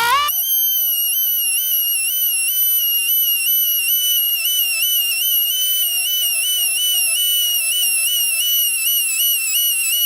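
High-pitched whine of a reversible electric rotary grinder sharpening steel hedge-clipper blades. Its pitch jumps up just after the start, then sags briefly and recovers over and over as the stone bears on the blade edge.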